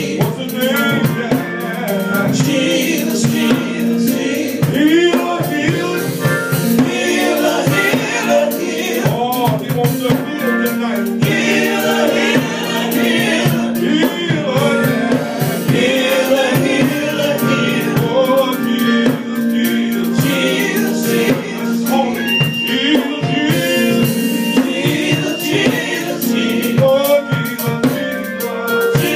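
Live gospel group singing with a band and drum kit behind them, the voices lively and continuous over a steady beat.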